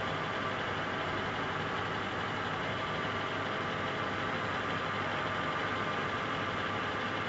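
Steady mechanical hum with a faint high whine above it.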